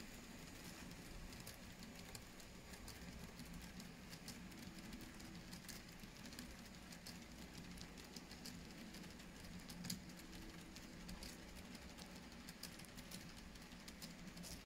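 An N-scale model goods train, a rake of grain hopper wagons, rolling along the track with light irregular clicking of the wheels over the rail joints and one sharper click about ten seconds in, over a faint low steady hum.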